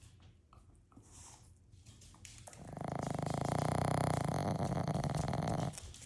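Dog snoring: one long, rattling snore of about three seconds, starting about two and a half seconds in.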